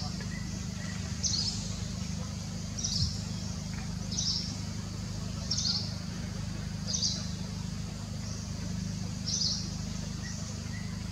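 A bird giving a short, high-pitched chirp again and again, about every one and a half seconds with one longer pause, over a steady low hum.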